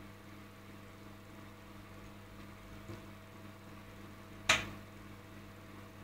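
Microwave oven running with a steady hum, with one sharp click about three-quarters of the way through.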